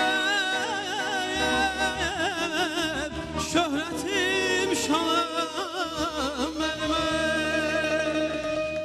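A man singing a heavily ornamented, wavering vocal line over live band accompaniment, settling into one long held note near the end as the song closes.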